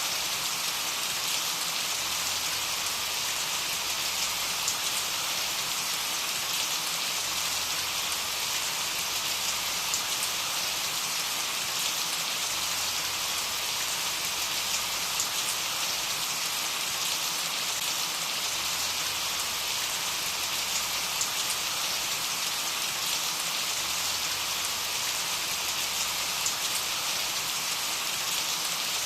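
Steady rain falling on a surface, an even hiss with fine scattered drop ticks.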